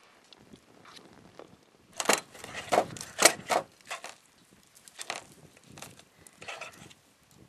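Plastic fork scraping and tapping in a pan while cutting up crispy, overcooked fried egg: a quick run of sharp scrapes and clicks about two to four seconds in, then a few scattered fainter clicks.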